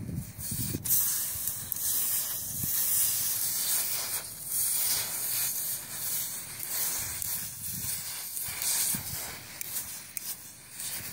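Red-hot metal ball hissing and sizzling as it is pressed and rolled into snow, flashing the melt into steam. The uneven hiss starts sharply about a second in and fades near the end.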